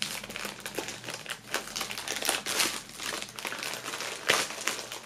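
Thin black plastic bag crinkling and rustling as hands grip and pull at it to tear it open, the plastic tough to break. A sharper crackle comes a little after four seconds in.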